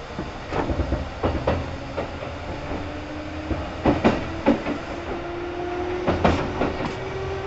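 Kintetsu 2800 series electric train running, heard from inside the car: a low rumble with a whine that climbs slowly in pitch as the train gathers speed, and wheels clicking over rail joints, often in pairs.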